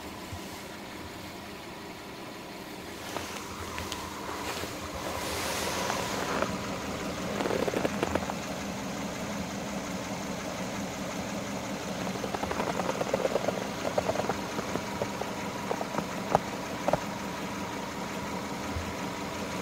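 Subaru Forester's 2.0-litre flat-four boxer engine idling steadily. Rustling and scattered knocks come in after a few seconds and run on over the hum.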